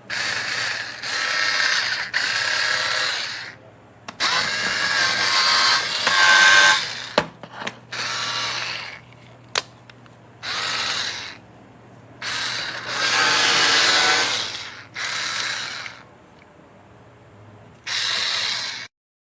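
A JENABOM 3.6 V cordless electric screwdriver running in about nine separate bursts of one to three seconds, its small motor and gearbox whining, with short pauses between them. There are a couple of sharp clicks in the pauses.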